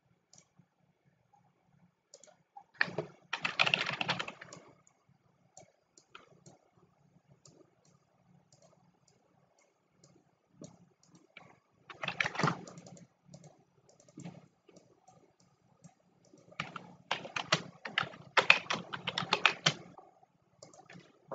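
Computer keyboard typing in three bursts: a short one a few seconds in, a brief one around the middle, and a longer, louder run near the end, with scattered single clicks in between.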